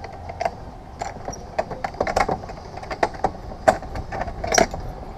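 Irregular sharp clicks, knocks and rattles as a wooden gate with a metal frame is unlocked and swung open, over a faint steady hum.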